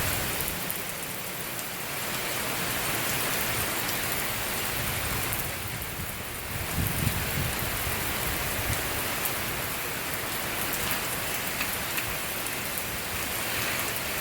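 Heavy thunderstorm rain pouring steadily, with a brief low rumble about seven seconds in.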